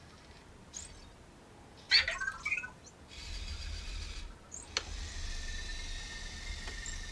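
Anki Vector robot giving a few short electronic chirps about two seconds in, then the steady whine of its tread motors as it turns and drives, with a click near the middle.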